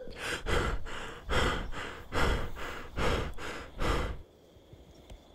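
Heavy, irregular breaths puffing right on the microphone, about eight of them, stopping about four seconds in.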